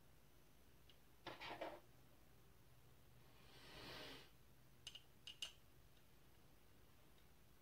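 Faint clicks and taps of small metal tools and the camera prism finder's housing being handled: a quick cluster of clicks about a second in, a soft rustle around four seconds, and three sharp clicks a little after.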